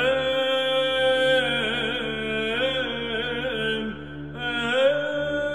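Chanted singing: long held, ornamented notes over a steady low drone, with a short break and a new held note beginning about four and a half seconds in.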